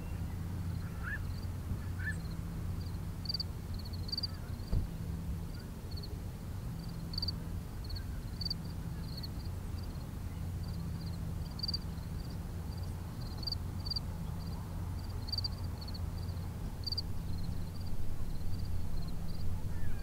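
Small birds chirping in short, high notes at irregular intervals over a steady low hum.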